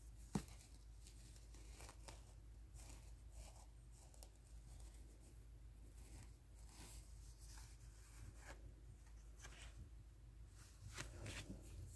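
Near silence with faint rustles and soft clicks of a paper lottery scratch ticket being handled, and one sharp click about half a second in.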